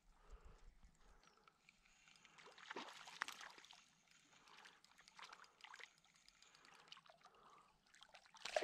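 Faint water splashing as a hooked rainbow trout thrashes at the surface near the shore while being landed, with a louder splash near the end.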